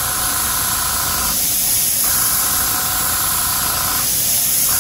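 NEOECO SJ81 gravity-feed dual-action airbrush spraying paint in three spells of hissing that break off twice for about half a second.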